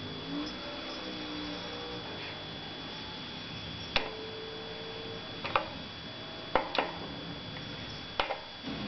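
Wrench working on a BMX bike's rear axle nuts: half a dozen sharp metal clicks and clinks from about four seconds in, the first ringing briefly, a couple coming in quick pairs. A faint steady high whine runs underneath.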